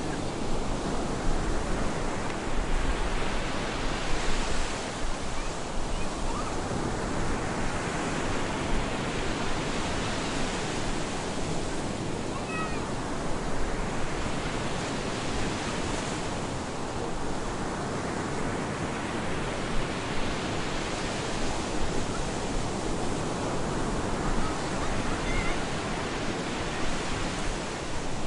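Stormy ocean surf breaking on a beach: a continuous rush of water that swells as each wave breaks and washes in, about every five to six seconds, over a low rumble.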